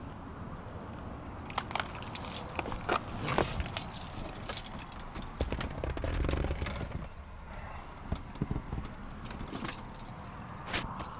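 Handling noise from a camera being moved around inside a parked car: knocks, rustles and scattered sharp clicks, with a louder low rumble about six seconds in. No engine is running.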